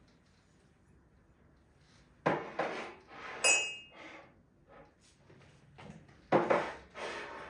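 Dishes and glassware being handled and set down: a few knocks, then a single ringing clink about halfway through, and two more knocks near the end.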